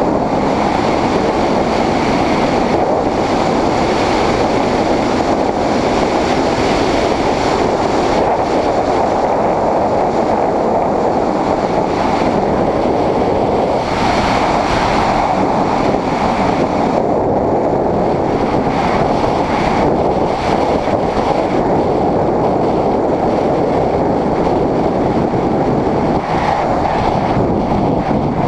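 Steady wind rush on the microphone of a GoPro mounted on a moving Honda CBR600RR sport bike: an even noise with no breaks or clear engine note.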